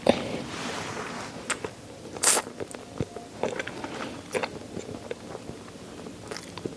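Close-miked biting and chewing of chicken neck, small bones crunching among wet mouth clicks, with one louder crunch about two seconds in.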